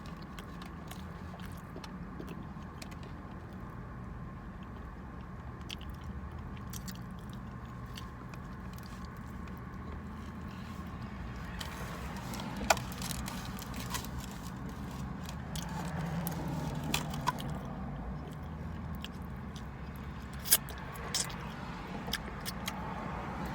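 Close-up chewing and biting on a sloppy chili cheeseburger: wet mouth sounds and small clicks, busier in the second half, with a couple of sharper clicks. A steady low hum runs underneath in the car cabin.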